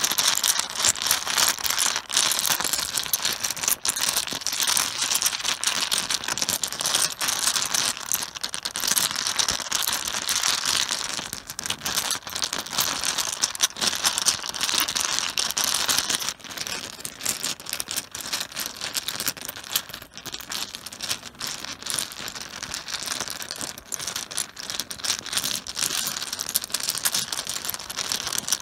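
Mahjong tiles clattering against each other on a cloth-covered surface, a dense, continuous run of clicks that swells and eases, as when the tiles are swirled and shuffled by hand.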